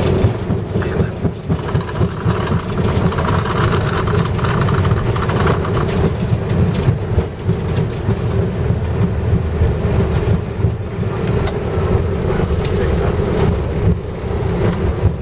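Airbus A320 rolling out on the runway just after touchdown, heard from the flight deck: a loud, steady rumble of wheels and engines.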